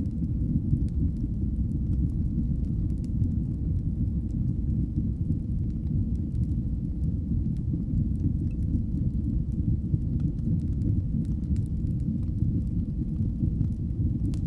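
Wood fire burning in a fireplace: a steady low rumble with faint, scattered crackles.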